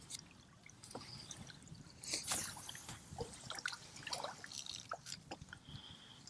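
Water splashing and dripping around a fishing kayak, with scattered small clicks and a louder splash about two seconds in.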